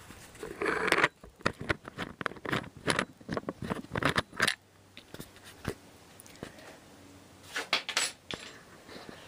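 Handling noise from the camera being gripped and moved by hand: a quick run of clicks, taps and rubbing, busiest in the first four or five seconds, with another short burst of clicks near the end.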